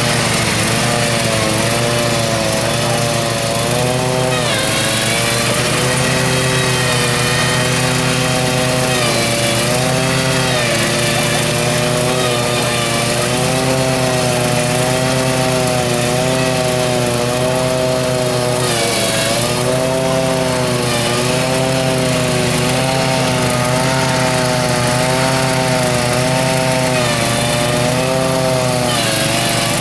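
Husqvarna riding lawn tractor running hard as it is driven across grass, its engine pitch rising and falling again and again.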